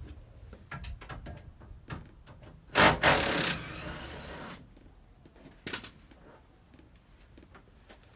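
Tools clicking and knocking as the last classic Mini rear subframe bolts are undone, with one short, loud rasping burst about three seconds in that dies away over about a second.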